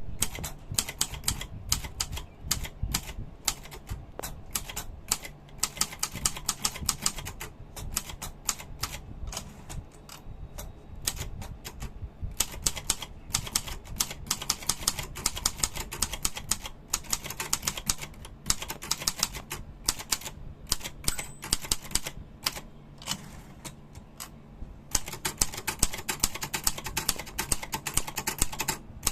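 Silver Reed Silverette II portable manual typewriter being typed on: a fast, uneven run of key and typebar strikes, with brief pauses between bursts.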